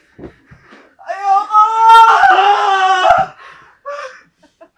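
A person's long scream, beginning about a second in and lasting about two seconds, with short breaths and whimpers before and after it.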